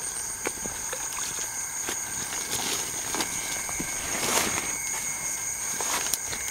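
Footsteps and rustling through tall grass, loudest a little past the middle, over a steady high-pitched chorus of night insects.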